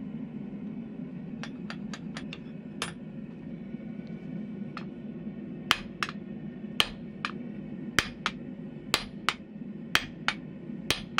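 Hammer blows on the top die of a blacksmithing guillotine fullering hot steel, about one a second from about halfway in, each sharp strike followed by a lighter rebound tap. Earlier there are light metal clinks as the bar is set between the dies, and a steady low hum underneath throughout.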